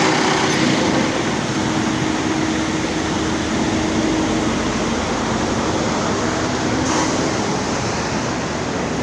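Freightliner Cascadia semi-truck giving off a loud, steady mechanical running noise, with a steady hum held for about the first four seconds that then fades. The truck has a starter fault that makes a noise when the starter is engaged.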